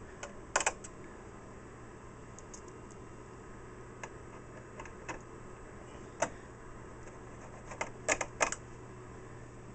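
A screwdriver and screws clicking against the metal battery door of an APC Smart-UPS 1400 as the door is screwed back in place: scattered small clicks, with a quick run of three near the end.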